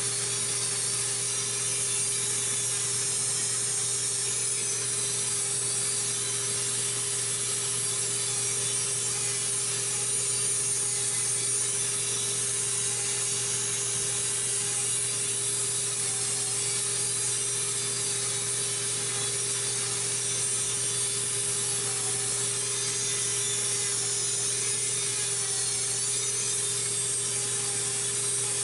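Electric rotary nail drill grinding down thickened toenails: a steady motor tone with an even grinding noise over it.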